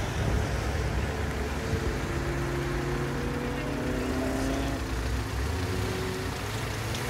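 A procession of cars driving slowly past, their engines running steadily, with a few engine tones rising gently as the cars pull through and away.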